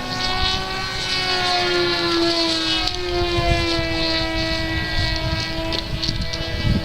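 Electric RC airplane's motor and propeller whining, the pitch sliding slowly down over several seconds, over heavy wind buffeting the microphone.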